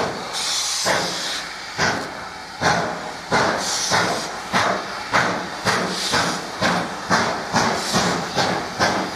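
Steam locomotive working hard as it accelerates. Its exhaust beats quicken from about one a second to two or three a second, with bursts of hissing steam between the early beats.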